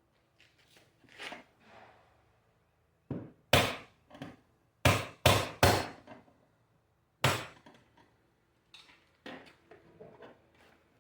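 Tool work with a series of sharp knocks and taps, like hammer blows: light taps at first, then about five loud strikes in the middle, then lighter taps again.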